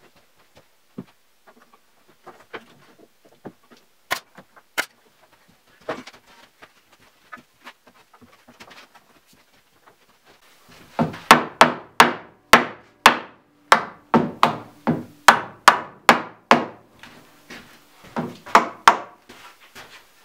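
Wooden bed frame being fastened together: faint scattered taps and clicks, then, about eleven seconds in, a run of sharp knocks on wood, roughly two a second, lasting about eight seconds.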